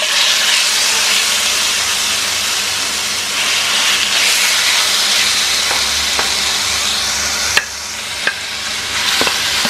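Marinated chicken pieces sizzling in hot oil in a nonstick frying pan, the sizzle starting suddenly as they go in and holding steady while they are stirred with a spatula. A couple of sharp clicks from the spatula against the pan come about two-thirds of the way through.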